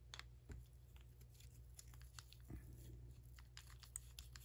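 Near silence with faint small clicks and taps of handling, as a Scotch-Brite polishing bit is fitted into a rotary tool handpiece, over a faint steady low hum.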